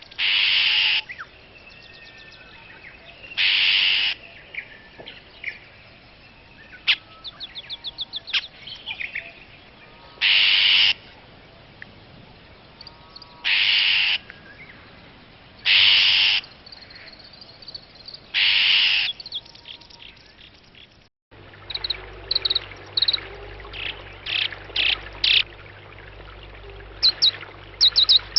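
Wild bird calls: a series of about six harsh, noisy calls of about a second each, a few seconds apart, over fainter chirps. About 21 seconds in, the recording cuts to a different bird giving quick, short, high notes that come faster near the end.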